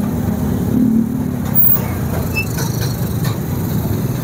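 Steady low rumble of slow, congested street traffic: car and motorcycle engines running close by.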